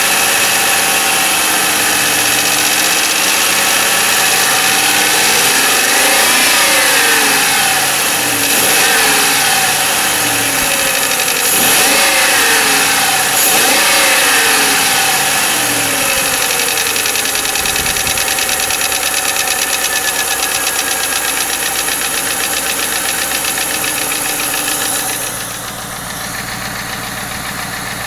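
1995 Lincoln Mark VIII's Ford 4.6 DOHC V8 running, blipped up and back down about four times, with a rapid tapping/knocking from the engine. The owner can't tell whether it is lash adjuster tap or piston slap/rod knock. It drops quieter near the end.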